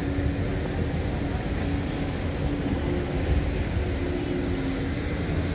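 Street traffic: a steady low rumble of vehicle engines with a faint constant hum over it.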